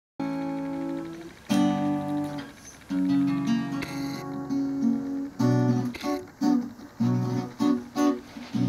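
Acoustic guitar intro: three chords struck and left to ring, then from about halfway in a steady strummed rhythm of about three strokes a second.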